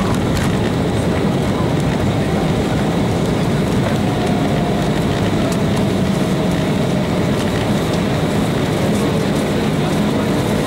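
Cabin noise inside an Embraer 190 jet rolling on the runway after landing: a steady deep rumble of the turbofan engines and the wheels. A faint whine slowly falls in pitch from about four seconds in.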